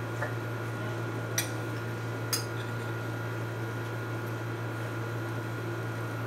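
Steady low electrical hum with a faint hiss, and a few faint clicks about one and a half and two and a half seconds in.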